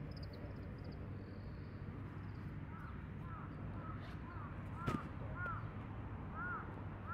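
Crows cawing, a string of short, repeated caws starting about three seconds in, over a steady low outdoor rumble. A single sharp knock stands out about five seconds in.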